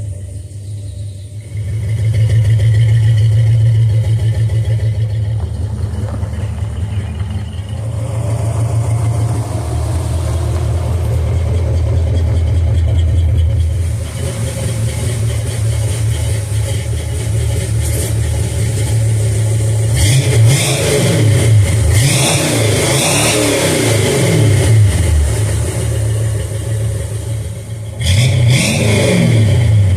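Old Dodge Charger's engine running with a steady low rumble, revved at times, with more revving in the last ten seconds.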